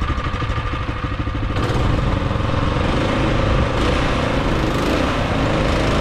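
Troy-Bilt snowblower engine running steadily with an even firing beat; it runs louder about a second and a half in.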